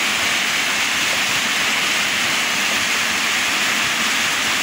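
Heavy rain falling, a steady even rush of noise.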